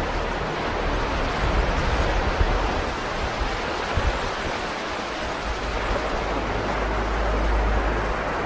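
Ocean surf breaking and washing up a beach: a steady hiss of waves with a low rumble underneath, swelling and easing slightly.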